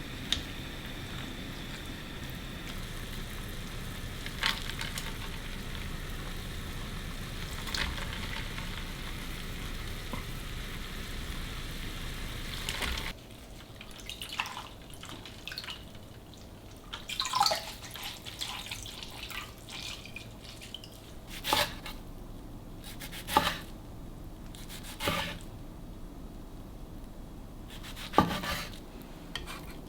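Kitchen tap running steadily, shut off about thirteen seconds in. After that come scattered knocks and clinks as kitchenware and food are handled.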